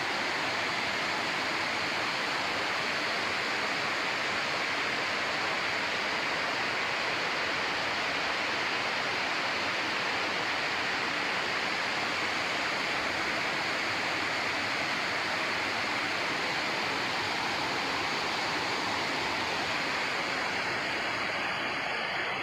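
Artificial rock waterfall cascading into a pond: a steady, even rush of falling and splashing water.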